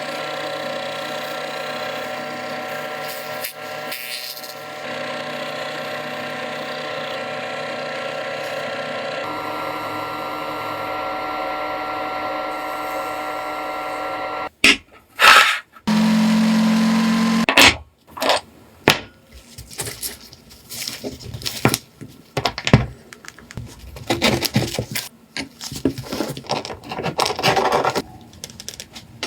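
An electric power tool runs steadily for about fourteen seconds. Then come a short low hum and a long run of irregular knocks, scrapes and clinks from handwork on metal parts.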